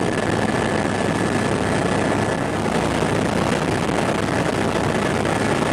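Helicopter in flight heard from inside the cabin: a loud, steady engine and rotor noise with a thin, steady high whine running through it.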